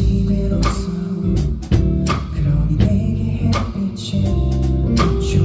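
Live band music: guitar and bass playing over a steady drum beat.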